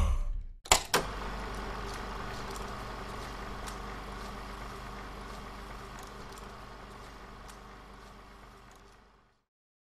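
Logo sound effect: two sharp clicks, then a steady low mechanical whirring with faint ticks that slowly fades out.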